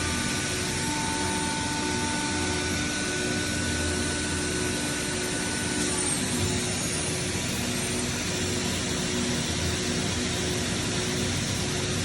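CNC machine running a program: a steady machine noise with a spindle whine on top. About halfway through some of the steady tones drop out and a brief high glide in pitch is heard.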